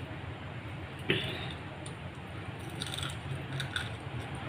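Eating by hand: fingers squishing rice and fish on a steel plate, with chewing, over a steady low background rumble. A sharp knock about a second in is the loudest sound, with a few faint clicks later.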